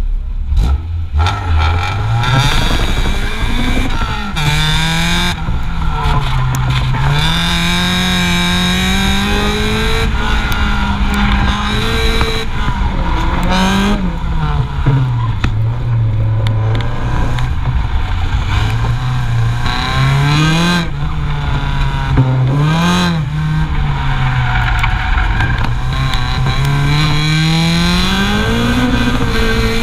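Car engine and exhaust heard from beneath the car, revving up and down again and again as the car accelerates and lifts through an autocross course, over road and wind noise.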